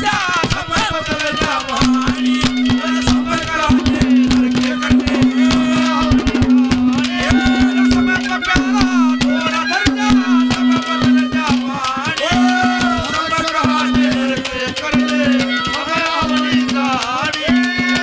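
Instrumental ragni accompaniment: a harmonium plays a winding melody over a fast, busy rhythm on tabla-style hand drums, with a held low note that breaks off briefly every second or so.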